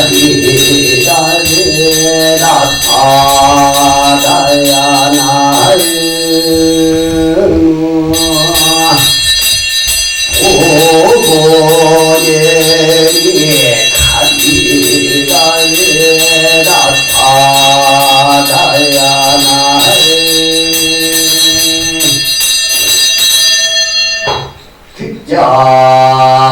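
Buddhist devotional chant sung in long held notes, in phrases of a few seconds with short breaks between them, over a steady low drone and several steady high ringing tones. The singing stops briefly near the end, then resumes.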